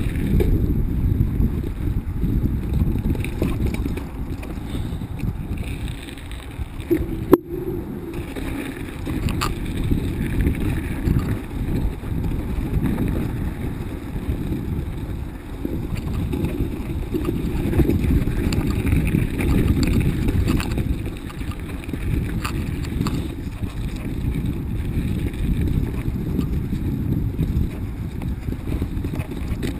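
Mountain bike riding fast down a dirt and snow trail, heard through a bike-mounted camera: a steady low rumble of wind on the microphone, tyres and rattling frame. One sharp knock comes about seven seconds in.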